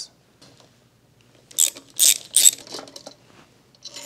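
Ratchet with a 10 mm socket loosening an ignition coil bolt: a handful of loud metallic clicks and clinks about a second and a half in, followed by lighter clicks.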